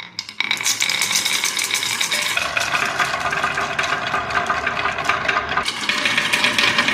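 Many marbles rolling and clattering down a rain-gutter and wooden-rail marble run, a dense rattle of rapid clicks that starts suddenly and shifts in tone twice as the marbles move onto other sections of track.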